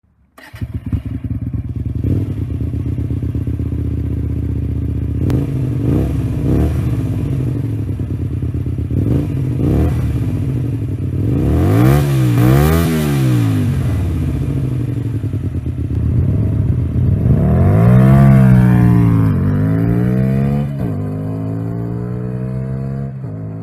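Hyosung GT125R's 125 cc V-twin with an aftermarket exhaust, idling and revved: short throttle blips, then two long revs rising and falling, and a bigger rev later on. Near the end the engine note drops lower and rises steadily as the bike rides off and accelerates.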